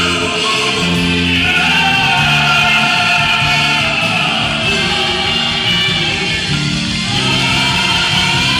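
Live band playing a song with a male lead singer and female backing singers, the voices holding long notes over drums, guitars and keyboards, heard from the audience in a theatre.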